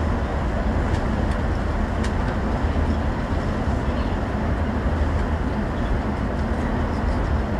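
Inside a moving bus: a steady low engine drone and road noise from the bus driving at speed, with a few faint ticks.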